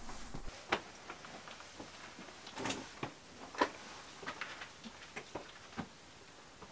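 Irregular scuffs and taps of a hiker's shoes and hands on rough rock while scrambling up a steep rock ramp, a handful of short, sharp sounds a second or so apart.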